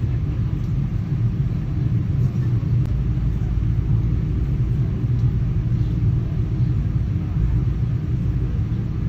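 Moving airplane's steady low rumble, a constant deep drone with no changes.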